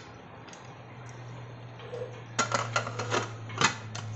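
A pressure cooker lid being fitted and closed onto the pot: a series of sharp metal clicks and knocks, with a low steady hum underneath.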